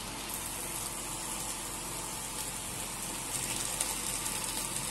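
Seasoned turkey pieces sizzling in a pot on a gas stove: a steady, even hiss. There is a small tap near the end as chopped onions drop in.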